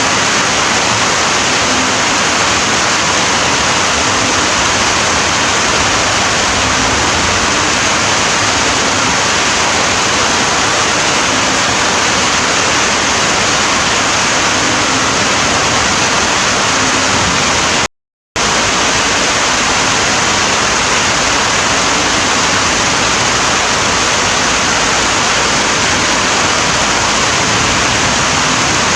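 Steady heavy rain, a dense even hiss of falling water. The sound cuts out completely for a split second about two-thirds of the way through, then resumes unchanged.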